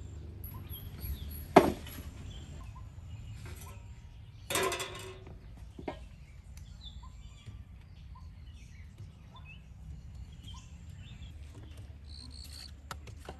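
Outdoor ambience with a steady low rumble and scattered faint bird chirps. There is a sharp knock about one and a half seconds in, and a brief clatter about four and a half seconds in.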